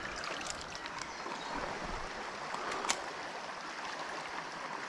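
Shallow river water running steadily over stones, with one sharp click about three seconds in.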